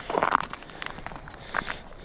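Footsteps of people walking outdoors: a run of short, irregular steps, the loudest one right at the start.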